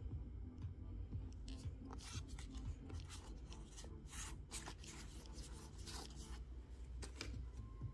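Pokémon trading cards being slid and flipped one at a time from hand to hand: a run of short, papery swishes and flicks of card stock against card stock at irregular intervals, over a low steady hum.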